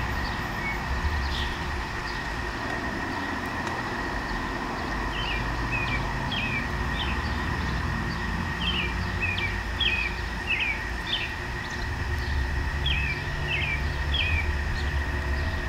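A bird singing short, repeated chirping phrases over a steady low rumble, with a faint constant high tone underneath.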